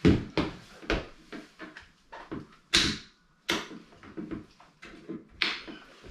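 A series of sharp clicks and knocks, the loudest a little under halfway through, from the EMOVE Cruiser electric scooter's folding stem joint being worked by hand and pushed forward so that its locking pin snaps into place.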